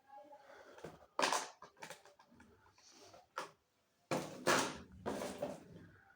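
A phone box and its packaging being handled: irregular rustling and scraping with a sharp click, loudest in a cluster of rustles about four seconds in.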